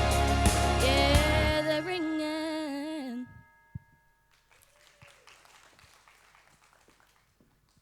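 Country song ending: a held, wavering sung note over the band, with the low end dropping out and the music stopping about three seconds in, then only faint background noise.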